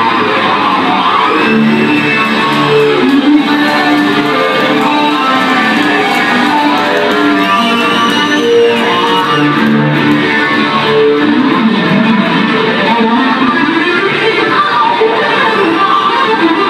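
Two amplified acoustic guitars playing together live, with picked melody notes over strummed chords.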